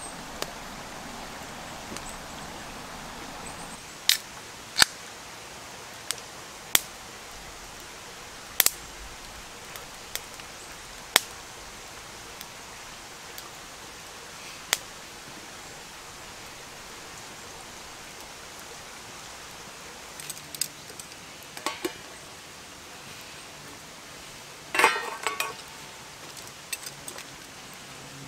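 Small wood campfire crackling, with sharp single pops every second or two over a steady low hiss. Later come two short bursts of clattering clicks.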